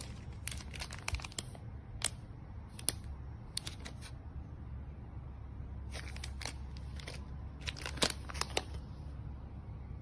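Clear plastic packaging crinkling in short, irregular crackles as bags of gold ball cake toppers on wire picks are handled, with a steady low hum underneath.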